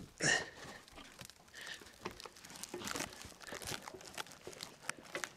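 Irregular crinkling and crunching as a bundle of firewood is picked up and carried, with footsteps on gravelly dirt.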